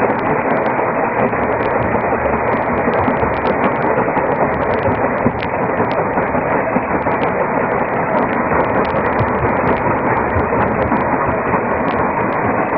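Rock-crushing plant running: the steady, loud mechanical din of a cone crusher and belt conveyors at work, with no change throughout.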